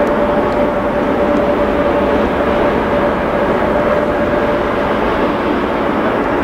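Boeing 777-200ER twin-engine jet at take-off thrust, lifting off and climbing out. Its engines give a steady, even rush with a high whine running through it.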